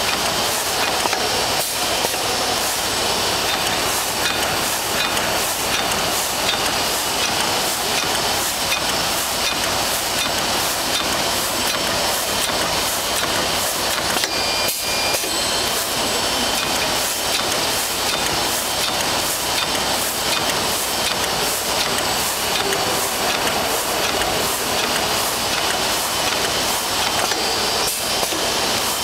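Hyplas HP-DBS-28ABSR-EC plastic bag-making machine running steadily: an even mechanical whir and hiss with a regular, repeating clack from its working cycle.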